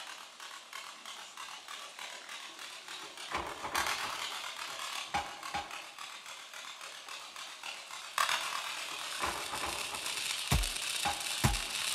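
Opening of an industrial electronic score: a dense crackling, ratchet-like rattle with scattered louder knocks, and deep thuds coming in about twice a second near the end as a beat builds.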